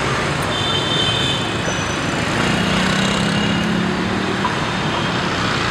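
City street traffic, with motorbikes and a minibus passing close by: a steady wash of engine and tyre noise. A low engine hum stands out from it for a couple of seconds around the middle.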